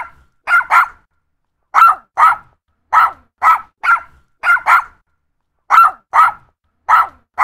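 Yorkshire terrier barking: a run of about fourteen short, high-pitched yaps, mostly in quick pairs with brief pauses between them.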